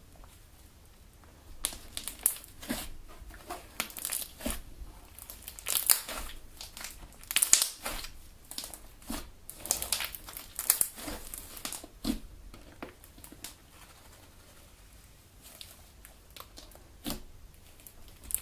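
Homemade Elmer's galaxy slime being kneaded, stretched and played with by hand, giving quick irregular crackly, sticky sounds. They start about a second and a half in, are densest through the middle, and thin out to a few isolated ones near the end.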